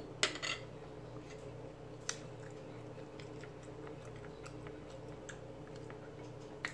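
Faint chewing and mouth sounds, with a few light clicks of a metal fork against a plate, the sharpest just after the start and another about two seconds in.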